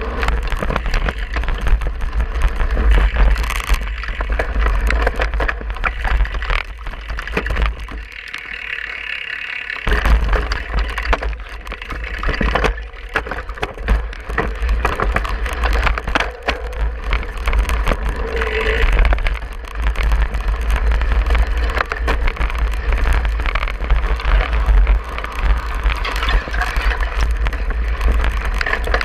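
Cyclocross bike ridden over a bumpy grass course, heard from a handlebar-mounted camera: the bike rattles and clatters over the ground, with a constant low rumble of wind on the microphone that eases for a couple of seconds about eight seconds in.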